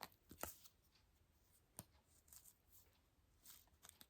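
Near silence with faint rustling and a few light clicks as hats are handled.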